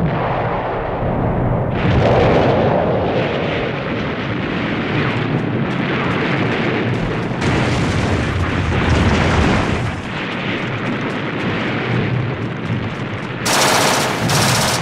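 Dense, continuous gunfire with machine-gun fire in it, over a steady low rumble of battle. It turns sharper and brighter for the last second or so.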